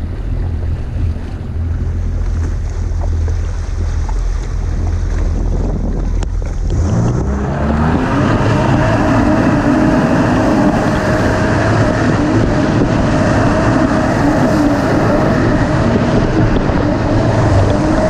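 Honda AquaTrax F-12X jet ski's turbocharged four-stroke engine, low and rumbling for the first several seconds, then revving up about seven seconds in and holding a steady high-rev note. Rushing water and wind are heard over it.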